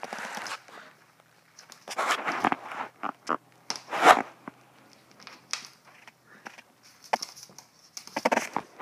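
A small Chihuahua playing, making irregular scuffling, rustling and sharp clicking noises, the loudest about four seconds in.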